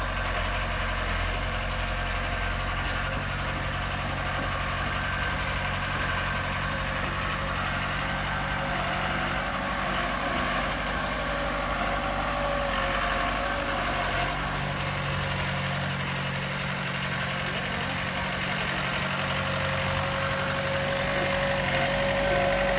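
Heavy-equipment diesel engine running steadily, with a thin whine that grows stronger near the end.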